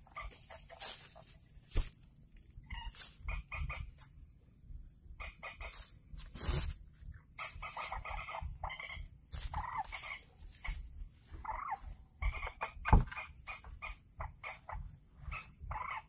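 Fowl-like clucking calls coming in short repeated bouts, with two sharp knocks, the louder one about thirteen seconds in.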